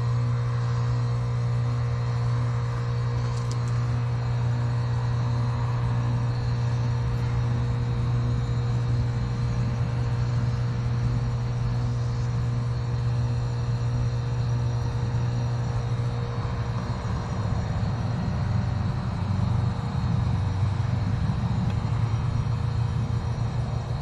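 Lennox 13HPX heat pump outdoor unit running in heating mode: a steady low compressor hum with the outdoor fan, wavering a little in the second half.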